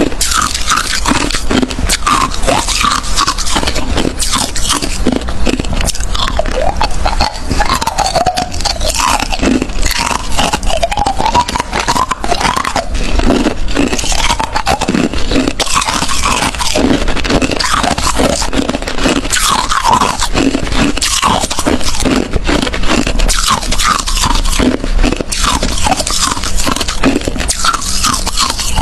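Crushed hard ice being bitten and chewed, a dense, unbroken run of loud, crisp crunches.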